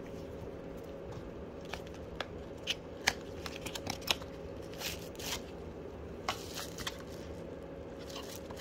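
Packaging for a replacement phone battery being handled: a cardboard box opened and the battery's plastic bubble-wrap sleeve crinkling, heard as a run of sharp clicks and rustles starting about two seconds in and dying away near the end.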